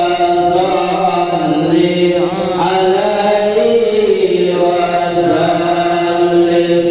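Islamic religious chanting in Arabic: a voice singing long held notes whose pitch slowly wavers and bends.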